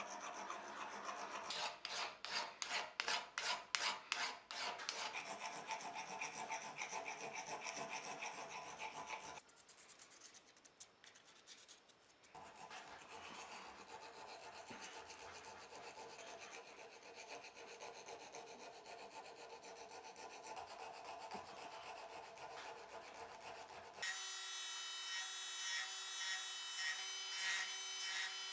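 Hand filing the eye of a steel hammer head with a round file: rasping strokes, loudest and in quick succession in the first few seconds, a brief quieter gap about ten seconds in, then steadier filing. About 24 s in, a small handheld rotary tool takes over, running with a steady whine as it works inside the eye.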